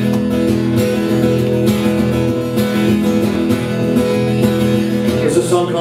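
Acoustic guitars strumming chords together, steady and loud: the instrumental introduction to a folk ballad.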